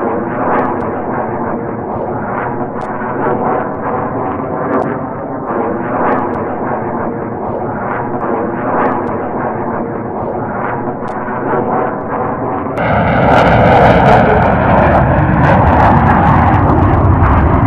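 Fighter jet engine noise: a steady rumble with scattered crackles. About 13 seconds in it cuts to a louder, brighter jet noise.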